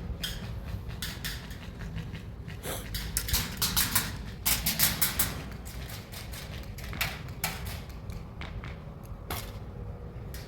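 Airsoft guns firing: sharp clicks and cracks scattered through, coming in quick runs around the middle, over a steady low rumble.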